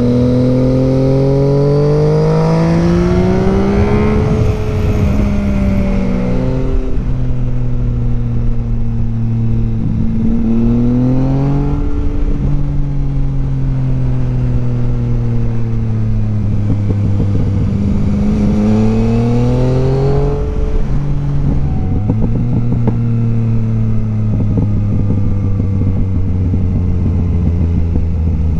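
Yamaha Tracer 900's inline-three engine through an M4 slip-on exhaust, ridden hard. The pitch climbs over the first few seconds and drops back at shifts. It climbs again about two-thirds of the way through, then settles into a steady note. Wind rush is heard over the helmet microphone.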